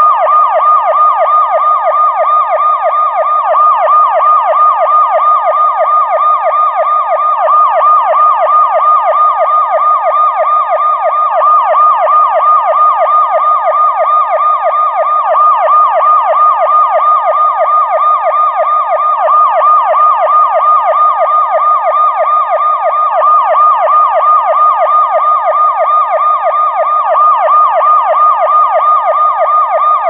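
Electronic police siren in yelp mode, loud and steady, its pitch sweeping rapidly up and down several times a second without a break.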